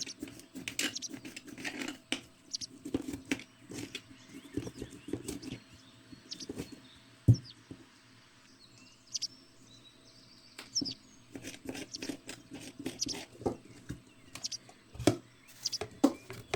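Irregular clicks and knocks of objects being handled and set down, with a few short high chirps here and there; one sharper knock about seven seconds in.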